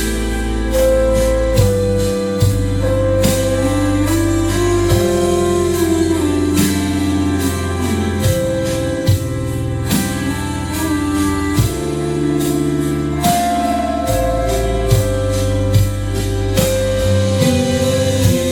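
Background instrumental music: long held melody notes over a sustained bass line, with a light regular beat.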